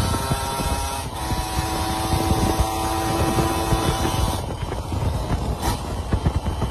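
Two-stroke motorcycle engine running, with an uneven, rapid popping from the exhaust; the higher hiss falls away about four seconds in.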